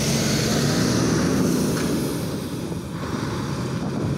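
A motor vehicle's engine running close by, a steady drone with dense road noise that swells and eases slightly, then cuts off suddenly near the end.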